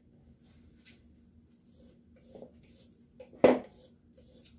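Quiet kitchen with a faint steady hum and light handling noises of a plastic bowl and grater, broken by one sharp knock about three and a half seconds in.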